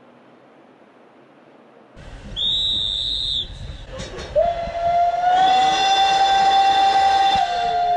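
After about two seconds of faint background noise, a short shrill whistle sounds, then a railway locomotive whistle blows one long, steady note that steps slightly lower in pitch near the end.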